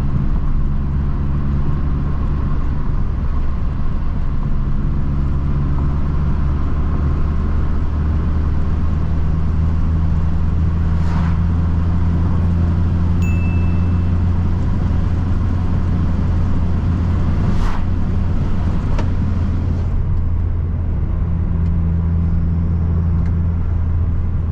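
Opel Astra G 2.0 turbo four-cylinder engine running steadily at low revs, a continuous low hum with no hard revving. Two short clicks and a brief high beep are heard partway through.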